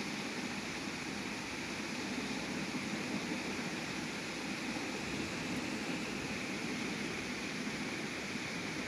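Steady background noise, an even hiss with no distinct events.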